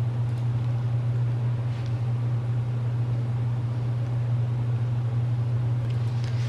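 A steady low hum over a faint hiss, with a faint soft tap of paper once or twice.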